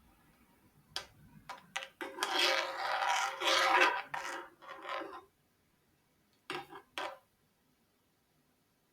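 A spoon clicking and scraping against kitchen cookware: a few sharp clicks, then about three seconds of steady scraping, then two short scrapes near the end.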